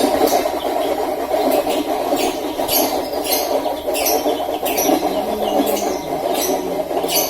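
Centrifugal spinner machine running at speed: a steady whirring drone, with short high-pitched squeaky rasps about twice a second.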